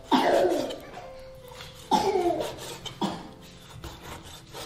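A small child's voice: three short vocal sounds, each starting sharply and falling in pitch.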